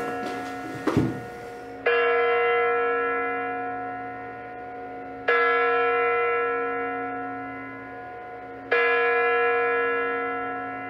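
Kremlin Spasskaya Tower clock bell striking the hour: a deep bell strikes three times about three and a half seconds apart, each strike fading away slowly. A short thud about a second in.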